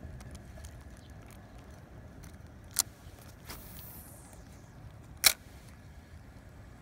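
Fishing reel during a lure cast: a sharp click, then line running off the spool with a falling hiss, then a second, louder sharp click as the reel is engaged. Low wind rumble underneath.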